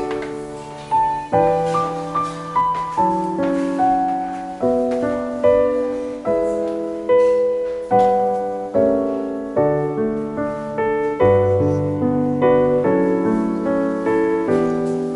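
Background piano music: a gentle melody over chords, each note struck and ringing away, about one new strike a second.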